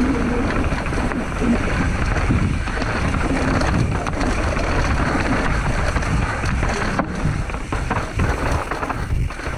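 Mountain bike rolling down a rocky trail: a steady rush of wind on the microphone over the rumble of tyres on rock and gravel, with a few sharp knocks.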